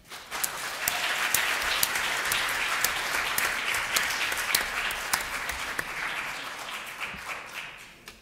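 Audience applauding, many hands clapping steadily, dying away near the end.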